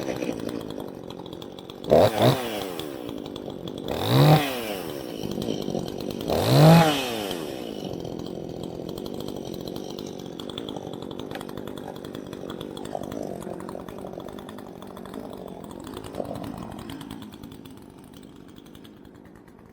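Two-stroke chainsaw just started, revved in three quick throttle blips about two seconds apart, each rising and falling in pitch, then left idling steadily. The idle gets quieter near the end.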